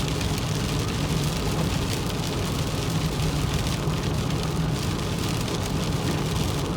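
Rain striking a moving car, a dense steady spatter of drops over the constant low rumble of the road and engine.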